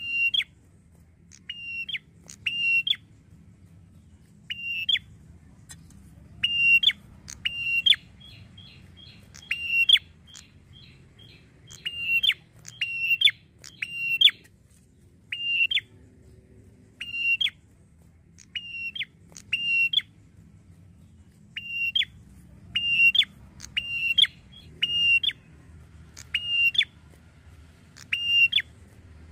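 Ashy tailorbird singing: loud, sharp whistled notes, often in pairs, repeated about every second. About a third of the way through there is a brief fast chattering run.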